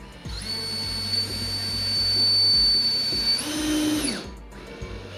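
Cordless drill/driver driving a machine screw through a rod holder's flange into the kayak's plastic deck: a steady motor whine lasting about three and a half seconds, changing pitch briefly and then winding down to a stop about four seconds in.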